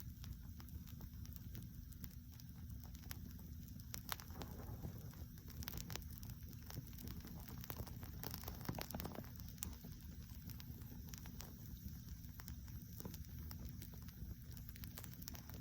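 Wood fire burning directly on the ground, crackling with irregular small pops and a few louder snaps over a low steady rumble.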